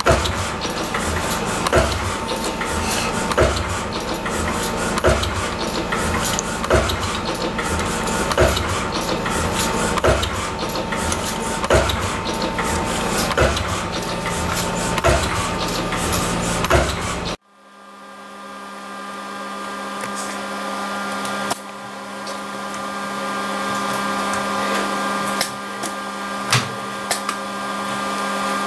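CNC wire-forming machine running, feeding and bending stainless spring wire with a regular clack about every 1.7 s. About two-thirds of the way through, the sound cuts abruptly to a steadier machine hum with a few separate clicks.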